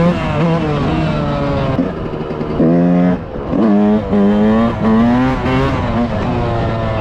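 1996 Yamaha YZ125 two-stroke engine with a Pro Circuit exhaust revving hard, its pitch rising and falling several times as the throttle is opened and eased off, with a brief drop near the middle.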